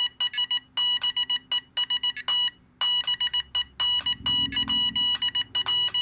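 Morse code side tone from a Teensy-based USB Morse keyboard adapter, one steady-pitched beep keyed by a single-lever iambic paddle in fast strings of dits and dahs with short gaps. It is sent too fast for the adapter, which decodes it as garbled letters.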